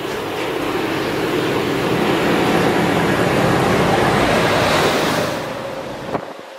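Class 57 diesel-electric locomotive running through the station at speed: a rush of engine and wheel-on-rail noise that builds as it comes near and fades as it goes, then drops away sharply after a short click near the end.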